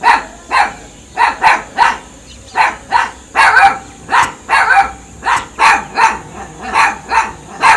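Dogs barking in a continuous run of sharp barks, about two or three a second, some coming in quick pairs.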